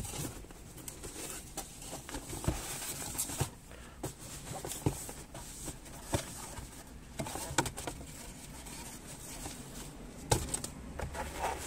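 Cardboard product box being handled and opened by hand: scattered light taps, scrapes and clicks as the flaps are folded back from a foam insert.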